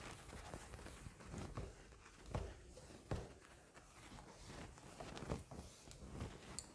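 Faint, irregular rubbing strokes of a cloth wiping marker writing off a whiteboard.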